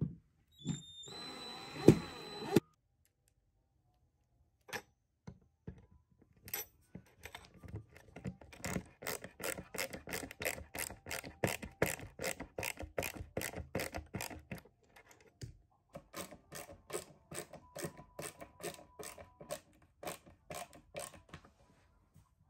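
A Ryobi cordless drill runs briefly at the start. After a pause, a ratcheting hand screwdriver clicks steadily, about three clicks a second, as a screw is driven through a metal bracket into a particleboard furniture panel; the clicking stops briefly about two-thirds of the way through, then resumes.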